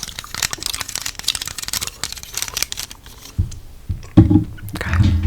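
Hair brushed close to the microphone: a dense, crackling scratch. After about three seconds this gives way to soft, wet thumps of gum chewing.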